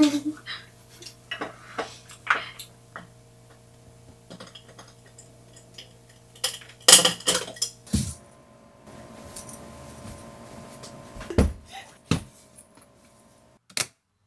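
Eating utensils clinking and scraping against dishes and a pot in scattered clicks, with a louder clatter about seven seconds in.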